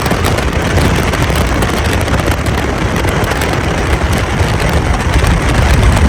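Bass boat running at speed on open water: a loud, steady rush of wind buffeting the microphone over the outboard motor and the hull on the water.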